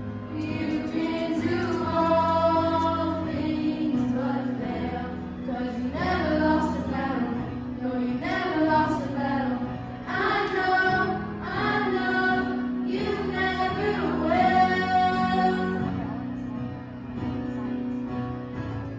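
A group of young, mostly female voices singing a worship song together in phrases of a few seconds, over steady instrumental accompaniment.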